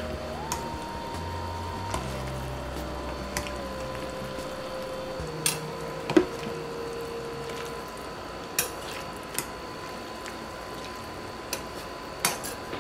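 Long metal spoon stirring chicken and sauce in a stoneware crock pot insert, with scattered clinks and knocks of the spoon against the crock, as cornstarch slurry is stirred in to thicken the sauce.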